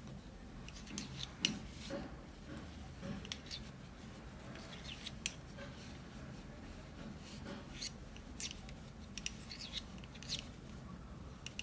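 Faint, irregular clicks and light scrapes of 10 mm metal circular knitting needles knocking and sliding against each other as stitches are knitted.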